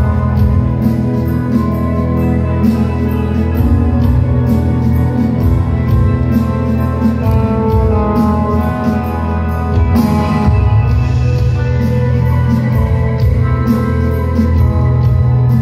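Live rock band playing an instrumental passage, loud, with electric guitar, bass and drums keeping a steady beat on the cymbals, and a louder crash about ten seconds in.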